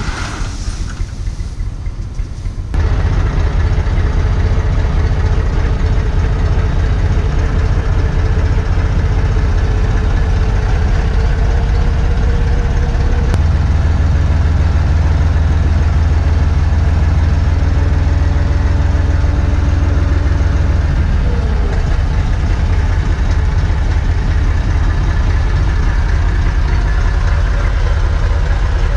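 Massey Ferguson 254S tractor's diesel engine running steadily, heard from inside the cab. It comes in loudly about three seconds in after a quieter opening, and its note slides briefly about three-quarters of the way through.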